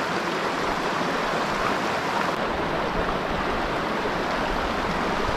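River water rushing over a rocky riffle: a steady, even rush with no break.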